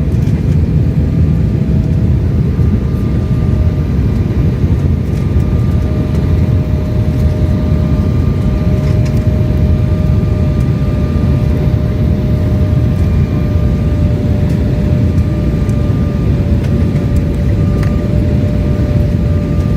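Jet airliner cabin noise heard from onboard: a steady low rumble of engines and airflow with a faint steady whine.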